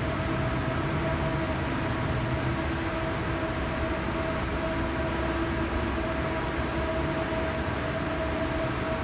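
Large standing electric fan running steadily: an even rush of air with a constant hum.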